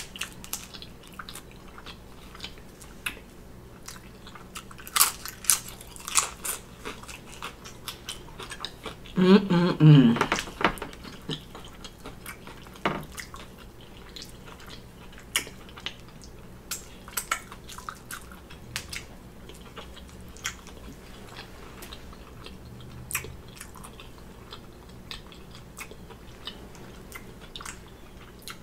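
Close-up eating sounds: biting into and chewing a BBQ bacon burger layered with homemade potato chips, with crisp crunches and wet mouth clicks. About nine seconds in comes a brief, loud vocal hum from the eater, the loudest moment.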